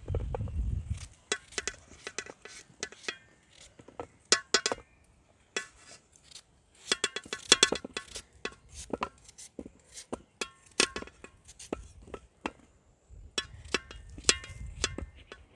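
Pieces of raw pumpkin, cut off by hand with a knife, dropping onto a steel tray: a quick, irregular series of clinks, several of them ringing briefly in the metal.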